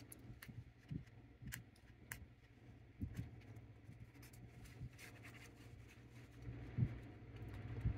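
Faint scratching and light ticks of a cotton swab rubbed over a pinball opto circuit board, soaking up excess cleaning alcohol, over a steady low hum.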